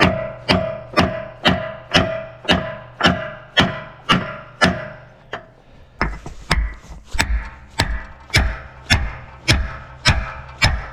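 Maul hammering on steel parts of a log loader, about two heavy blows a second with a short pause about halfway through. Each blow in the first half leaves a metallic ring.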